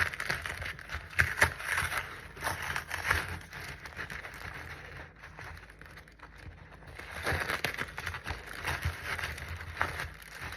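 Irregular crackling and rustling as the dry potting soil of a small banana plant is handled, with a quieter stretch in the middle.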